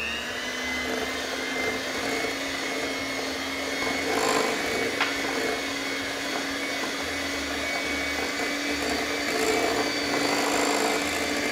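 Electric hand mixer running steadily with a motor whine, its beaters working eggs into creamed butter and sugar in a glass bowl, with a few sharp clicks about four to five seconds in.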